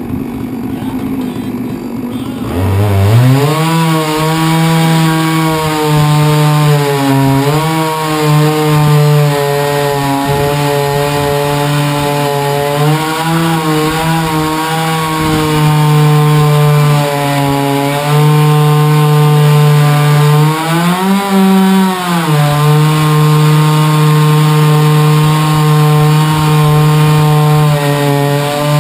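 A 99cc MS660-clone two-stroke chainsaw built from a Huztl kit, running at lower speed for the first couple of seconds, then opened to full throttle and held there under load as it rips a log in a Granberg 36-inch chainsaw mill. The engine note stays steady with small dips, and briefly climbs higher about two-thirds of the way through.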